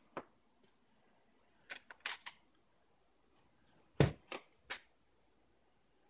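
A few scattered clicks and knocks in a quiet room: one just after the start, a small cluster around two seconds, then a louder thump about four seconds in followed by two quicker knocks.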